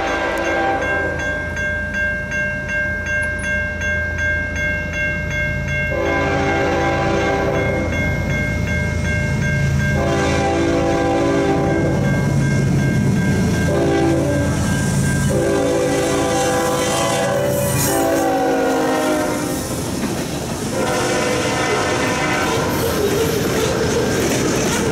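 CN 3803 freight locomotive's air horn blaring in a series of long and short blasts, a chord of several notes, as the train runs through a level crossing. The low rumble of the locomotive and the rolling train runs underneath.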